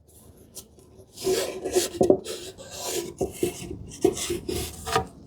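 Wooden sticks scraping and rubbing against wood in a tight drawer-bottom groove: a run of irregular scraping strokes starting about a second in.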